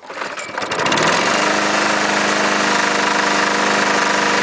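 Briggs & Stratton mower engine on a 2010 Lawnboy catching on a cold start by hand crank. It runs up to speed over about the first second, then runs steadily.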